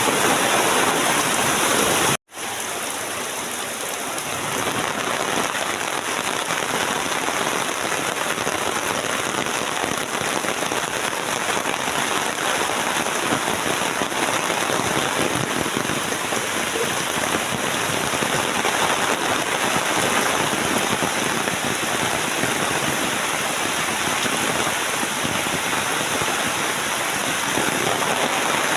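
Steady rain falling, an even, dense hiss. The sound cuts out for an instant about two seconds in, then the rain resumes a little softer and holds steady.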